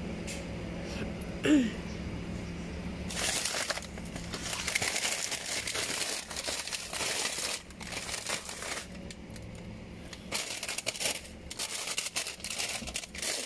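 Plastic packets of frozen breaded calamari crinkling and rustling as a hand rummages through them, in irregular bursts from about three seconds in.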